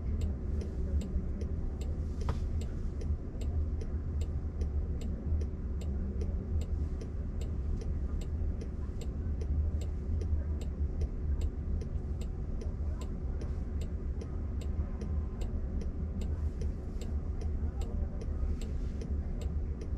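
Turn-signal ticker of a Waymo Jaguar I-Pace ticking steadily, about two to three ticks a second, while the car sits stopped with its indicators or hazard lights flashing. A steady low cabin rumble runs underneath.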